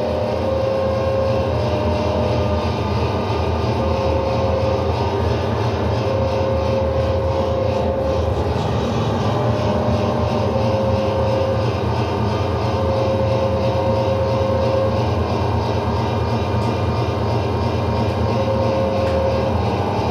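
A dense, steady electronic drone with a noisy low rumble underneath. A single mid-pitched held tone comes and goes over it, each time lasting about one to two seconds.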